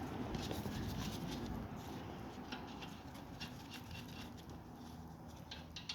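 Wheel nuts being fitted and threaded onto the wheel studs by hand: faint, scattered small metallic clicks and scrapes.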